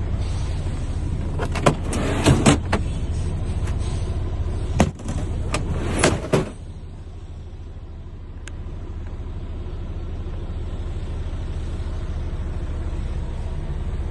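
MAN TGX 18.500's straight-six diesel engine idling steadily, with several sharp knocks and clatters in the first half. About six and a half seconds in, the sound becomes quieter and duller.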